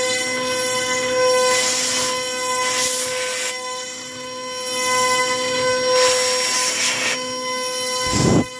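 CNC router spindle whining steadily while an 8 mm two-flute end mill cuts an adaptive pocket in pine, the cutting noise swelling and fading in passes every two seconds or so. A short low thump near the end.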